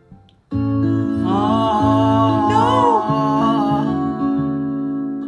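Music starting suddenly about half a second in, after a brief near-silence: sustained low notes under a moving melody.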